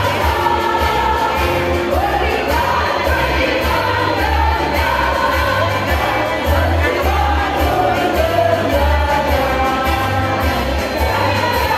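Women's choir singing in parts, several sustained and gliding vocal lines together, over a low pulsing bass underneath.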